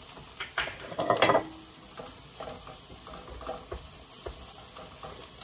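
Chopped onions sizzling as they sauté in oil in a skillet, with a wooden spoon scraping and knocking against the pan as they are stirred. The loudest knocks come about a second in.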